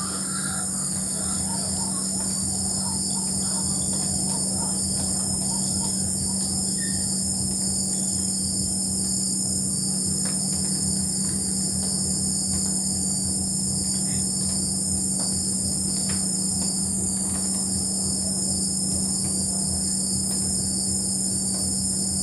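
Night chorus of crickets and other insects, a steady high-pitched trilling with a low steady drone beneath it. In the first few seconds a bird gives a run of short repeated calls that fade out, which the angler takes for a white-breasted waterhen (ruak-ruak).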